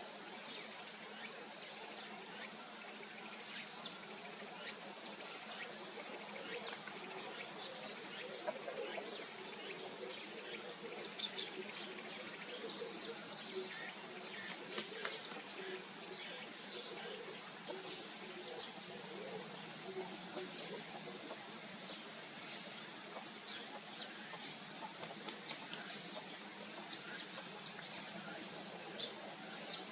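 Forest ambience: a steady, high-pitched insect drone, with short high chirps repeating about once a second over it.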